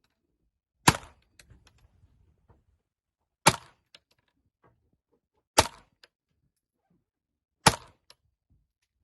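Browning Challenger .22 LR semi-automatic target pistol firing four slow, aimed shots about two seconds apart, each a sharp crack followed by a few faint clicks.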